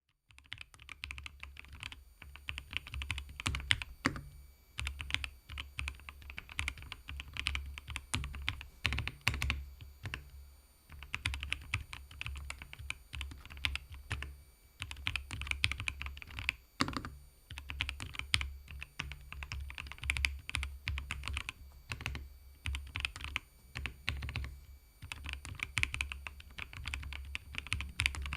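Keychron V1 Max mechanical keyboard being typed on in steady runs of keystrokes with short pauses: a quiet, muted clacking, with a few stronger single strokes standing out, such as around four, nine and seventeen seconds in.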